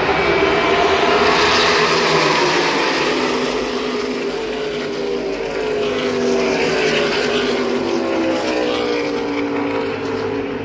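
A pack of NASCAR Cup Series stock cars racing past, the sound of several V8 engines blended together, with their pitch falling as the cars go by.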